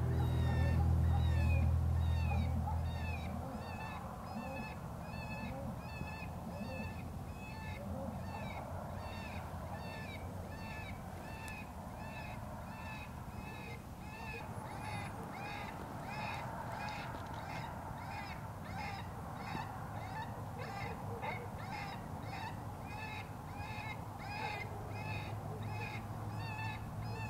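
Prey-distress calling played through a FoxPro CS24C electronic predator caller: a short raspy squeal repeated evenly, about one and a half times a second. Background music fades out during the first few seconds.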